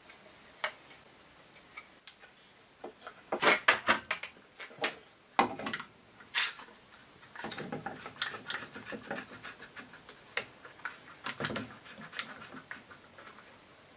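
Wooden box parts being handled and pressed together on a workbench during glue-up: scattered knocks and clicks of wood on wood, the loudest about three and a half seconds in, with a stretch of rubbing in the middle and a few more clicks near the end as bar clamps are picked up.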